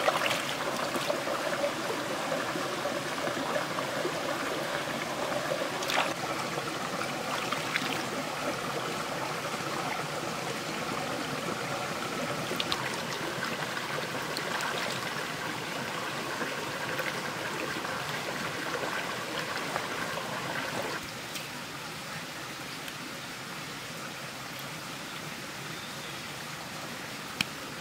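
Shallow stream running steadily over rocks, with a few splashes and clicks of vegetables being rinsed in the water. About two-thirds of the way through, the rush of water drops to a quieter level.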